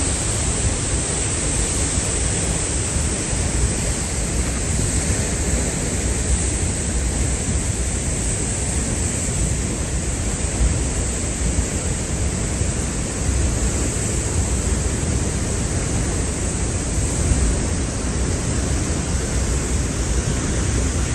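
Roaring Peričnik waterfall swollen after heavy rain: a loud, steady rush of falling water with a deep low rumble.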